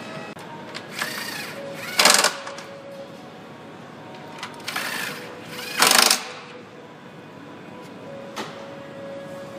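Compact cordless impact driver running down the bolts that fasten the air box to the throttle body. It runs in short bursts: a softer brief run about a second in, then a loud one about two seconds in, and the same pair again near five and six seconds.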